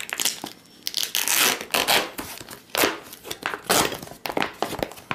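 An MRE's thick plastic outer bag being torn open by hand: a run of sharp rips mixed with crinkling of the plastic, the loudest tears about a second and a half, two, three and nearly four seconds in.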